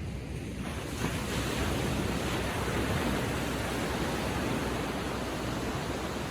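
Ocean wave breaking gently and washing up the beach: a hiss of surf that swells about a second in and slowly fades.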